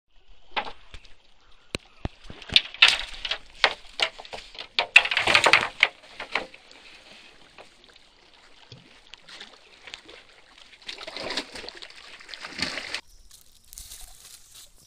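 Irregular sloshing and splashing of water against a rocky shore, with sharp knocks, loudest in the first half. Near the end it gives way to the faint high crinkle of a plastic bag being handled.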